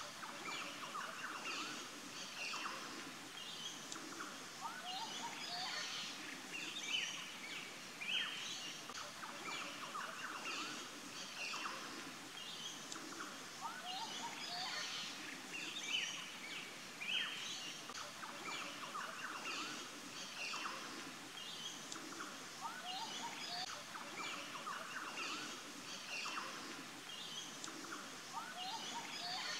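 A chorus of many birds chirping and calling together in quick, overlapping short notes. The same stretch of calls comes round again about every nine seconds, like a looped nature recording.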